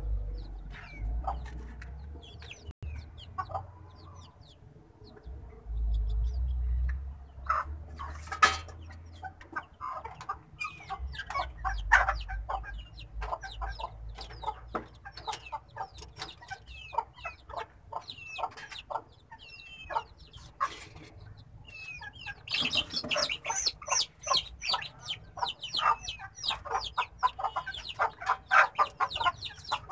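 Chickens clucking and calling, scattered at first, then much busier and louder for the last several seconds.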